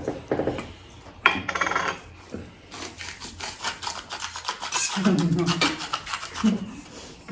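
Hand-twisted salt or pepper mill grinding over a plate: fast runs of dry ratcheting clicks in two spells, the longer one in the middle, with knife and fork scraping on a plate.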